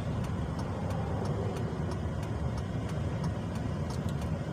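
Steady low rumbling background noise with faint scattered ticks, of the kind a running vehicle or road traffic makes.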